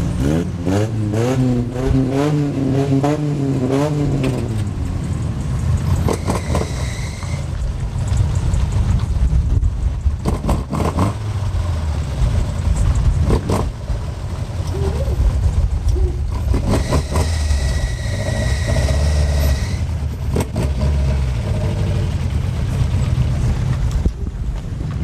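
Cars driving slowly past on wet pavement with a low rumble throughout; an engine revs up and down in the first few seconds. A high steady whine sounds twice, about six seconds in and again for a few seconds in the middle.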